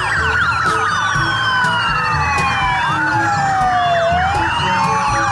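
Several police motorcycle sirens sounding at once. Fast yelping sweeps overlap slower wails, one of which falls steadily for about four seconds and then climbs again. Music plays underneath.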